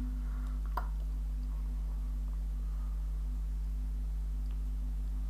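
Steady low electrical hum in the recording, with a single short click about a second in.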